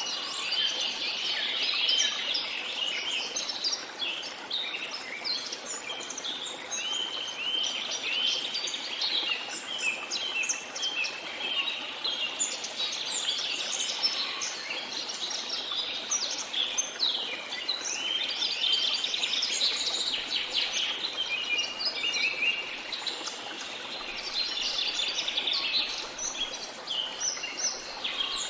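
Many small birds singing and chirping at once, a dense overlapping chorus of quick high notes, over a faint steady background hiss.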